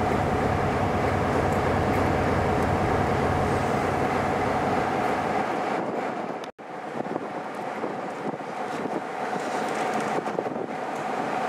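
Class 47 diesel locomotive running steadily at idle, waiting to move off. About six and a half seconds in the sound breaks off for an instant and comes back thinner, without the deep rumble.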